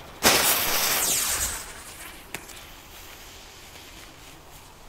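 Jet-flame lighter and burning fuse hissing as a Dynamit Superballer 2 firecracker is lit. The hiss starts just after the beginning and fades away over about a second and a half, leaving a quiet wait with one faint click.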